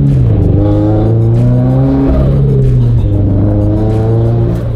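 Turbocharged Subaru BRZ's flat-four boxer engine pulling hard under acceleration, heard from inside the cabin: the engine pitch climbs, drops at a gear change about three seconds in, then climbs again.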